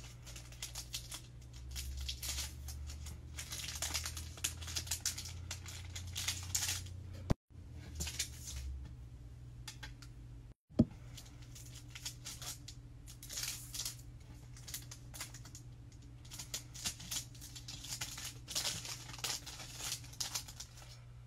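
Clear plastic packing bags crinkling as hands handle them and slip beaded bracelets inside. The crackling comes and goes in quick runs.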